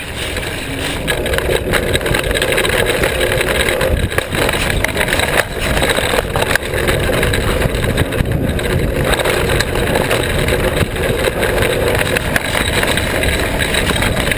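Mountain bike rolling fast down a dirt track: tyres rumbling over gravel and wind buffeting the camera microphone, with short knocks and rattles as the bike and its suspension fork take bumps. The noise gets louder about a second in as the bike picks up speed.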